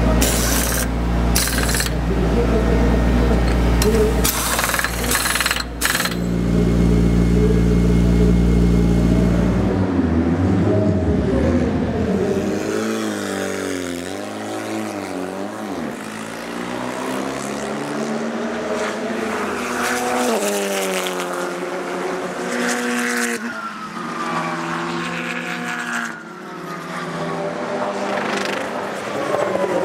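Pneumatic impact wrenches fire in short bursts during a race-car tyre change, over a loud, steady low engine note. After about ten seconds, turbocharged TC2000 touring cars' engines rev and pass, their pitch rising and falling with gear changes.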